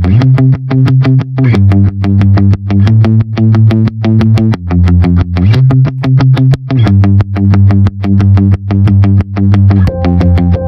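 Background music with a fast, steady beat of about four strokes a second over sustained low chords.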